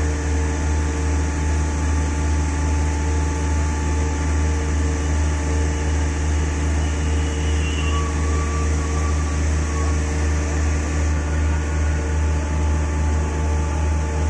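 Heavy construction machinery running steadily: a loud low hum with an even throb, and a few steady whining tones above it.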